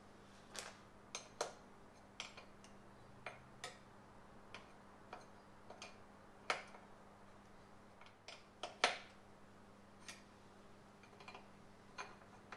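Irregular light clicks and taps of hand tools and small metal parts being handled, with a faint steady hum underneath.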